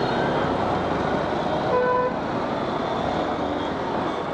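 Steady riding and traffic noise from a motorcycle moving through city traffic. A vehicle horn honks once, briefly, about two seconds in.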